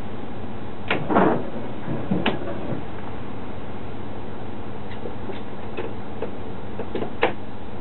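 Driver's cab of an Alstom LINT 41 diesel railcar: a steady background running noise, with sharp clicks and knocks as the driver works the controls on the desk. The loudest knocks come about a second in, then lighter ticks from about halfway, and one sharp click near the end.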